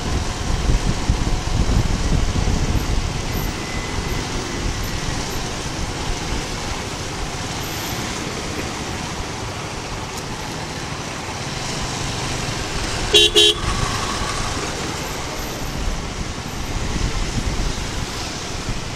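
Steady wind and riding noise from a Suzuki Gixxer 250 motorcycle on the move, with a vehicle horn giving two quick toots about two-thirds of the way through.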